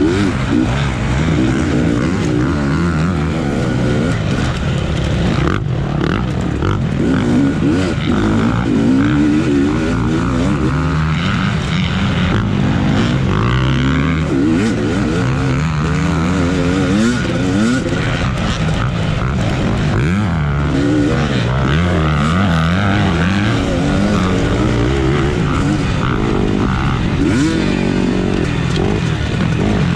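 A 250cc-class off-road racing motorcycle engine, close up from the rider's point of view, revving up and down over and over as the throttle is worked through the course.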